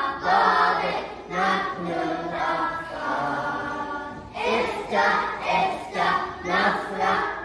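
A choir of young children singing a song together, in short sung phrases with one longer held note about three seconds in.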